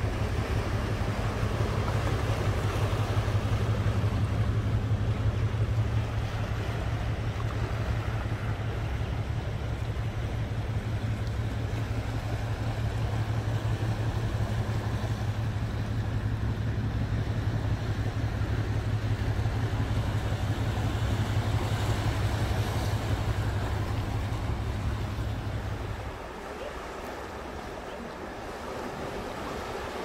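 Sea waves washing on a rocky shore, under a steady low hum that stops about four seconds before the end.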